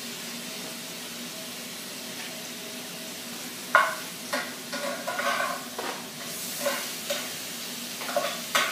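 Steady room tone, then from about four seconds in, scattered clicks and short rustling scrapes as the toy poop pieces on a 'Don't Step In It' game mat are picked up and set back down in new places.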